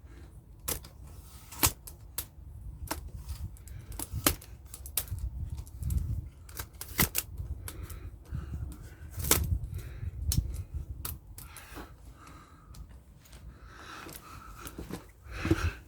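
Irregular sharp metallic clicks, clinks and knocks of hand tools and car parts being handled while the car's rear panel area is dismantled, with a few louder knocks among them.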